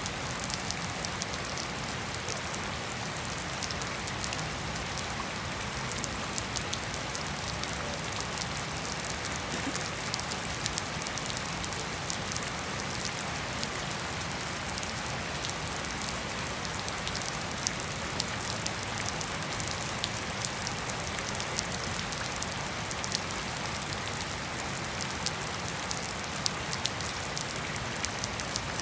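Steady rain falling on grass and puddled ground, an even hiss with frequent sharp, close drop hits scattered through it.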